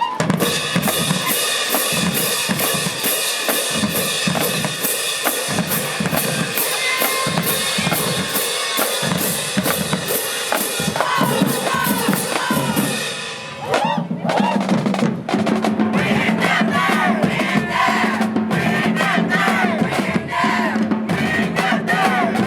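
High school marching band drumline, bass and snare drums, playing a steady cadence of about three strokes a second with held notes over it. About 13 seconds in the cadence breaks off, and shouting voices follow over scattered drum hits.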